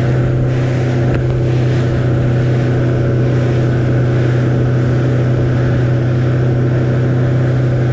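Motorboat engine running at a steady speed, a constant low hum with a rush of noise over it.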